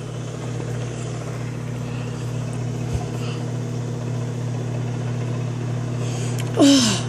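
Microwave oven running with a steady hum while it heats a mug of French toast. There is a single click about three seconds in, and a short falling vocal 'ooh' near the end.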